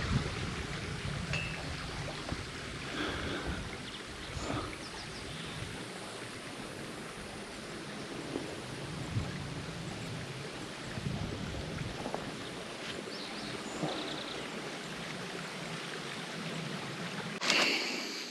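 Wind gusting over the microphone outdoors: a steady rushing noise with uneven low rumble, a few faint knocks and rustles, and a louder brief rustle near the end.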